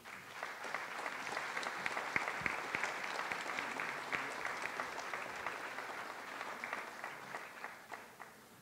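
A crowd applauding: the clapping starts at once, holds steady for several seconds, then thins out and fades away near the end.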